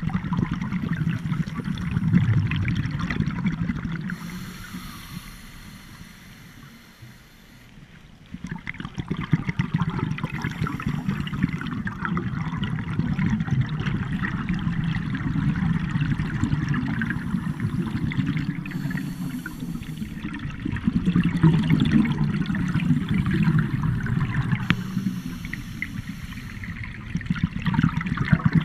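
Scuba diver's exhaled air bubbling and burbling underwater in long stretches, with a quieter lull between about four and eight seconds in.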